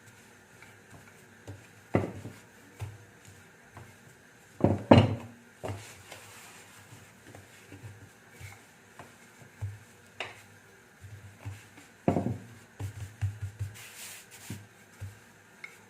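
Rolling pin rolling out soft donut dough on a floured work surface, with soft thuds and a few sharp knocks against the counter, the loudest about five seconds in and a quick run of them near the end.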